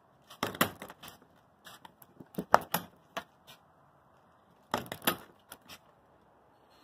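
Vinyl fence gate's cable-release latch clicking and clacking as the gate is worked, in three clusters of sharp clicks with the loudest about two and a half seconds in.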